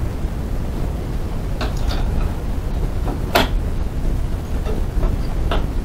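Metal bobbin case and bobbin of a vintage Janome sewing machine handled and fitted into the bobbin area, giving a few short sharp clicks, the loudest about three and a half seconds in, over a steady low hum.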